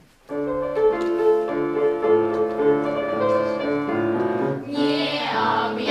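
Piano music: an instrumental introduction to a song, starting about a third of a second in.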